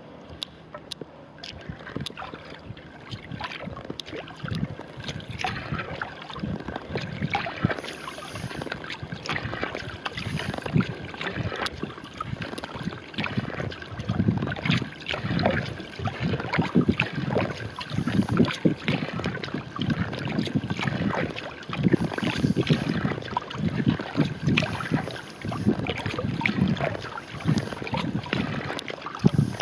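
Wooden paddle strokes in the water beside a skin-on-frame kayak: repeated splashes and drips of paddle blades entering and leaving the water, quieter at first and louder after the first few seconds. Wind buffets the microphone.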